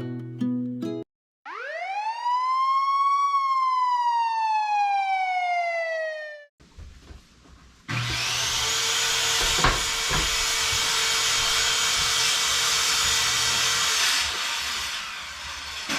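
A single siren wail that rises for about two seconds, then falls slowly for about three. After a short gap comes a loud, steady rushing noise with a low hum for about six seconds.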